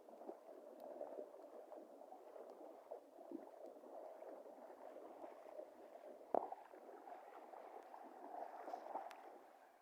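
Faint, steady rush of flowing water, with scattered small clicks and one sharp click about six seconds in.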